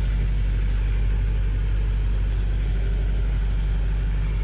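Duramax 6.6 L V8 turbodiesel idling steadily while still cold, heard from inside the cab as an even low rumble.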